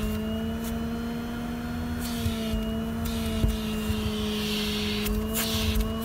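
Vacuum cleaner running steadily, its motor giving a constant hum and whine over the rush of air being sucked through the hose, with a few light knocks of the nozzle.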